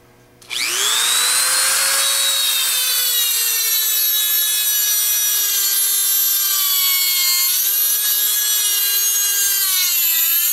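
Dremel rotary tool with a reinforced cutoff wheel starting about half a second in and grinding a groove into the steel outer race of the alternator rotor's rear ball bearing. It rises in pitch as it spins up, then holds a steady high whine that sags a little in pitch a couple of times as the wheel bites into the race.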